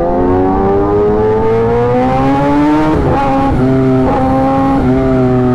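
Kawasaki ZX-10R sportbike's inline-four engine accelerating hard. The revs climb steadily for about three seconds, drop sharply at an upshift, then hold steadier with a few brief dips.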